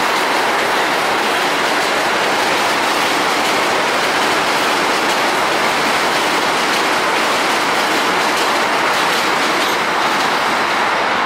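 New York City subway train running over the Williamsburg Bridge tracks: a loud, steady rush of wheels on the rails.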